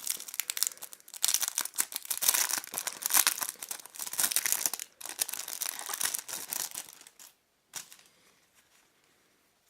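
A small packet holding a microfiber cleaning cloth being torn open and handled, with crinkling and tearing for about seven seconds. A single short click follows, then it goes quiet.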